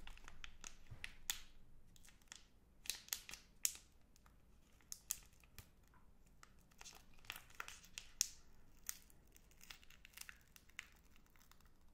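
Wrapper of a Magnum Double Chocolate bar being torn and peeled open by hand, crinkling in irregular sharp crackles, a few louder than the rest.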